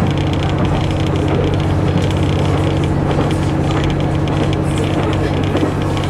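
Cabin sound of a KiHa 121 diesel railcar under way: the diesel engine's steady drone with the running noise of wheels on rail, unchanging throughout.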